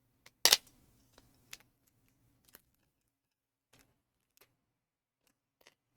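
Plastic wrapping being peeled off a cardboard box: a sharp crackle about half a second in, then scattered small crinkles and clicks.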